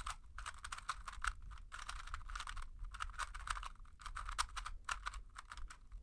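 A plastic 2x2 Rubik's cube being scrambled by hand: a quick, continuous run of light clicks and clacks as its layers are turned.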